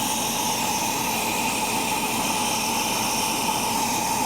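1967 Ford Mustang inline-six engine running steadily with the air cleaner off, the open intake adding a steady rush with a high tone held over it.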